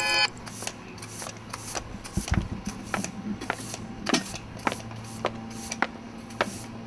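A ringing alarm cuts off at the very start. Then come evenly paced footsteps on a paved street, a sharp step about every half second.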